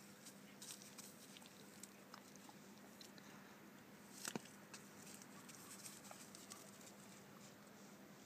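Donkey biting and chewing dry tobacco plant stalks: faint, scattered crunching and crackling of dry stems, with one sharper crack about four seconds in.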